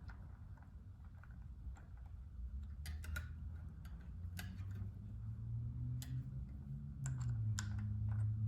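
Light, irregular clicks and taps of a tool and small bolt hardware on metal as a hex-head bolt is threaded into an aluminium hub mount, over a low hum that grows louder toward the end.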